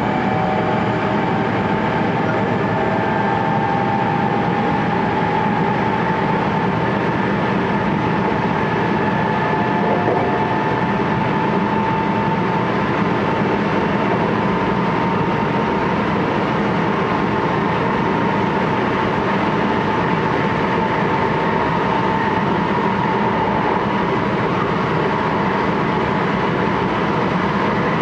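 JR West 223 series 1000 (second batch) electric train with Hitachi VVVF traction, running between stations and heard from inside the motor car: steady rolling rumble of wheels on rail with a traction motor whine that rises slowly in pitch as the train gains speed.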